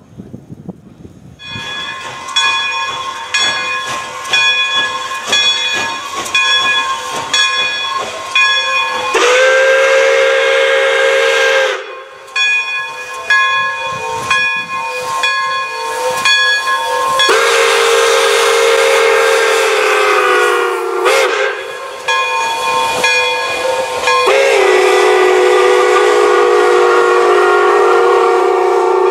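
Pere Marquette 1225, a 2-8-4 Berkshire steam locomotive, ringing its bell about every two-thirds of a second while its steam whistle blows the grade-crossing signal: two long blasts, a short one, then a final long blast held.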